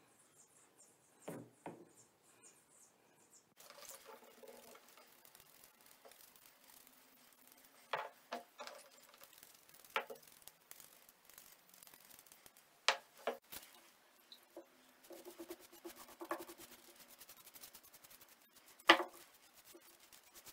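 Small wooden blocks being handled on a wooden workbench: a string of sharp knocks as they are picked up and set down, the loudest near the end, with soft rubbing in between from a sponge and a paintbrush working liquid onto the wood.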